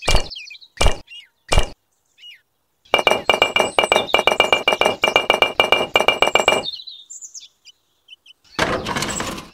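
Miniature clay bricks clinking as they are tapped into place: three sharp, evenly spaced knocks, then a few seconds of rapid clicking and clinking with a faint ringing note. A short scraping burst comes near the end.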